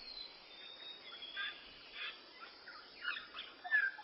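Faint, scattered short bird calls and chirps, with a brief whistled note near the end.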